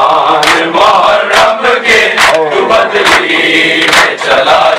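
A group of men chanting a noha in unison over rhythmic matam: open-handed chest-beating, the hand strikes landing in a steady beat roughly once a second.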